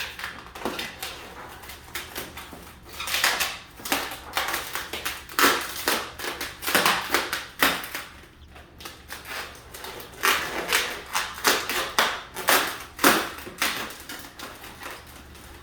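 260 latex modelling balloons rubbing and squeaking as they are twisted, wrapped and tied by hand, in irregular clusters of quick scrapes.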